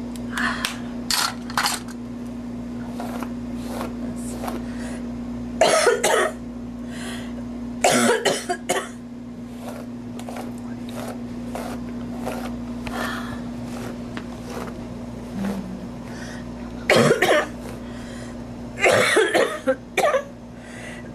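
A woman's dry coughing in bouts: a few light coughs at first, harder fits about six and eight seconds in, and two more bouts near the end, over a steady low hum.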